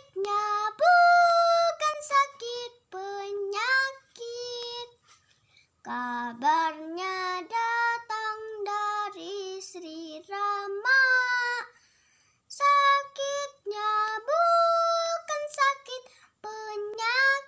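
A child singing a folk melody unaccompanied, in sung phrases separated by short breaths and a couple of longer pauses.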